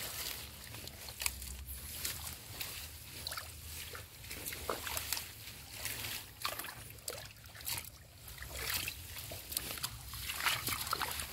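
Shallow muddy water in a half-drained fish pond sloshing, with irregular small splashes and trickles as it is stirred.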